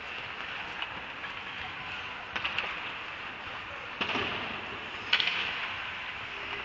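Ice hockey rink sounds: a steady hiss of skates on the ice, broken by a few sharp clacks of stick, puck or skate, the loudest about five seconds in.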